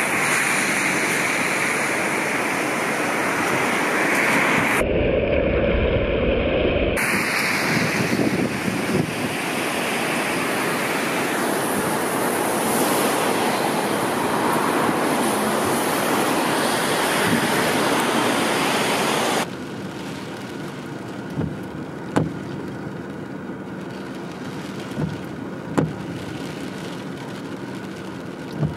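Steady rushing noise of wind on the microphone over a river in flood, with low buffeting gusts a few seconds in. After a sudden drop about two-thirds through it turns to quieter outdoor noise from a wet road, with road traffic and a few sharp knocks.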